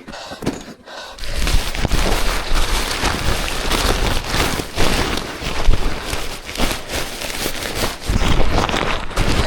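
Loud, close rustling and crackling handling noise, rising sharply about a second and a half in, as fishing gear is hurriedly packed up.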